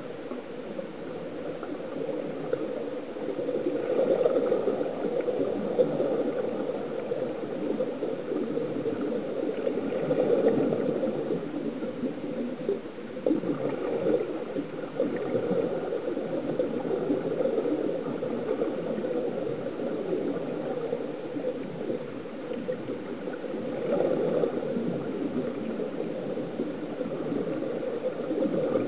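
Continuous underwater bubbling and gurgling, swelling now and then, from air streaming out of sea-walk diving helmets.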